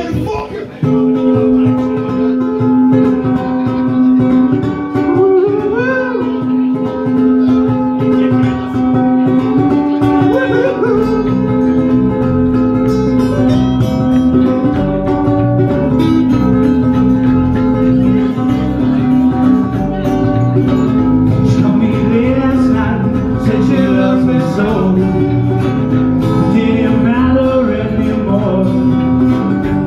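Live acoustic band playing a song without lyrics being sung: strummed acoustic guitar over electric bass guitar, with a held melody line above.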